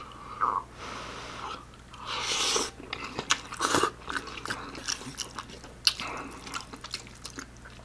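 Close-miked eating of instant ramen noodles: a slurp about two seconds in, then chewing with many quick wet mouth clicks.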